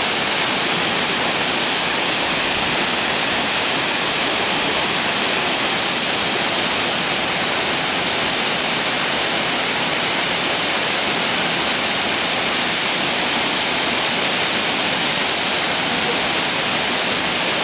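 Waterfall pouring into a plunge pool: a steady, loud rush of falling water that does not change.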